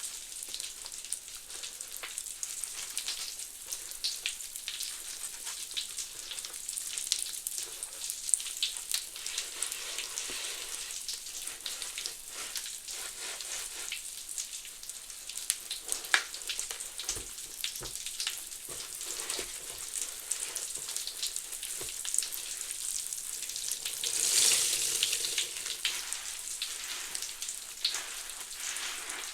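Foam of Fabuloso cleaner mixed with Mr. Bubble bubble bath crackling: a dense fizzing crackle of countless tiny bubbles bursting, with a louder swell of fizzing about five seconds before the end.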